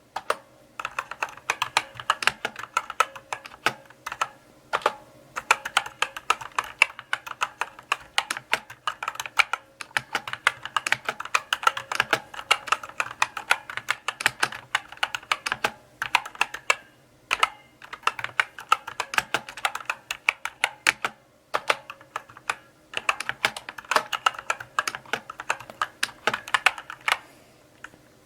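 Mechanical keyboard being typed on: quick runs of key clicks, broken by brief pauses every few seconds.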